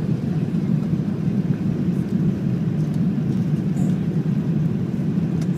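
Cabin noise aboard an Airbus A380 as it rolls along the runway: a steady low rumble from its four engines and the ground roll.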